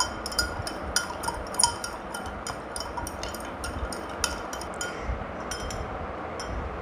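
A metal spoon clinking against a glass tumbler as sugar is stirred into water to dissolve it: quick irregular clinks, several a second, thinning out in the last couple of seconds.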